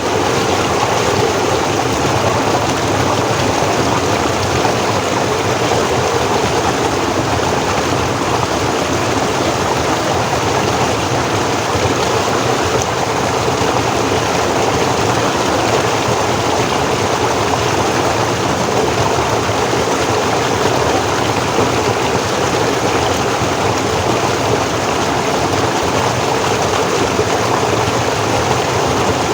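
Forest stream flowing over rocks, a steady rushing and splashing of water.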